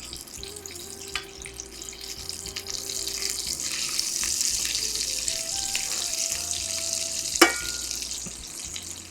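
Breaded chicken pieces frying in hot olive oil in a pan, the sizzle swelling about three seconds in and easing off near the end. One sharp knock sounds about seven seconds in, with faint background music underneath.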